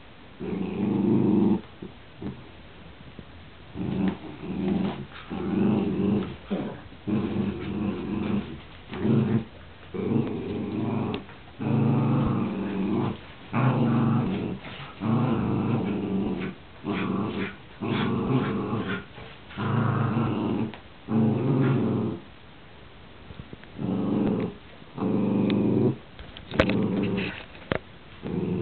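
Dogs play-growling during a tug-of-war over a rope toy, in many bursts of about a second each with short pauses between them. A few sharp clicks come near the end.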